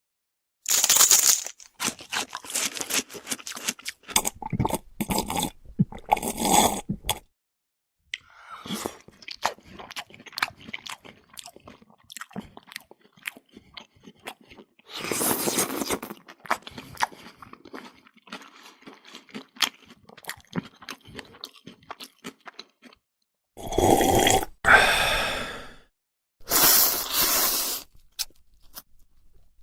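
A string of separate eating sound effects played one after another: close-up crunching and chewing, with short pauses between clips and a few louder, longer noisy bursts near the start, about halfway and near the end.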